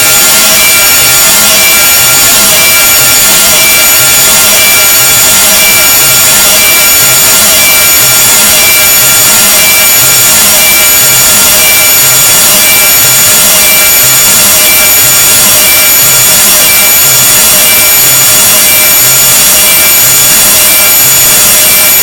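A loud, harsh, unbroken noise sound effect built to be unpleasant to listen to. Steady high-pitched tones run through a hissing, grating texture, with a faint low throb repeating a little more than once a second.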